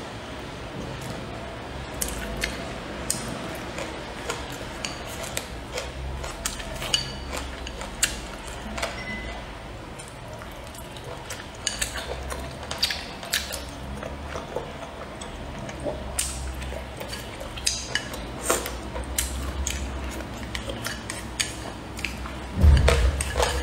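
Close-miked eating: wet chewing and mouth sounds, with wooden chopsticks clicking against a ceramic rice bowl in many short sharp ticks. There is a louder low thump near the end.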